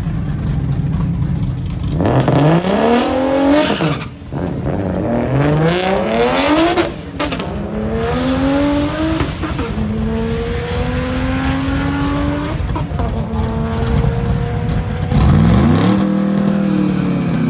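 2008 BMW 135i's single-turbo 3.0-litre inline-six at a drag-strip launch: it runs steadily on the line, then about two seconds in its pitch climbs sharply through the gears, with a brief drop at each of three quick shifts. After that it holds a steadier, slowly rising note as the car pulls away down the track, and near the end another loud rising engine rev comes in.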